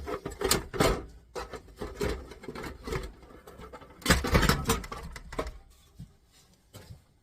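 Thin sheet-steel top cover of a CD player being pulled free and handled: clattering and scraping in two bouts, one at the start and another about four seconds in.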